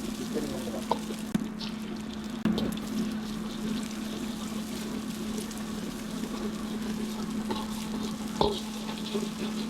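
Food sizzling as it is stir-fried in a hot pan, with a few sharp knocks of the spatula against the pan, the clearest about two and a half seconds in and near the end. A steady low hum runs underneath.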